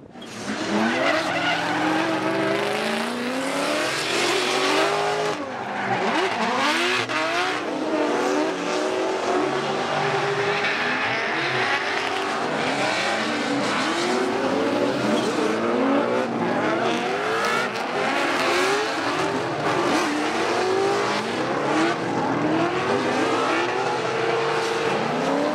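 Drift cars sliding sideways under power. Several engines rev hard, their pitch rising and falling over and over as the drivers work the throttle, over a steady rasp of tyres skidding and squealing.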